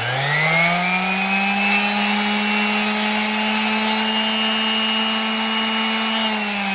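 SKIL 5-inch random orbital sander running free with no paper and no workpiece. Its motor whine rises as it spins up in the first second, holds steady, then drops in pitch near the end.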